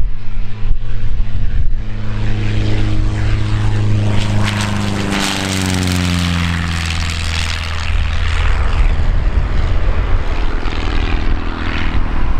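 Propeller and six-cylinder Lycoming engine of a Pitts S-2A Special aerobatic biplane making a fast low pass. The engine note drops sharply in pitch as the plane goes by about five seconds in, then dips and swells again as it pulls up into a climb.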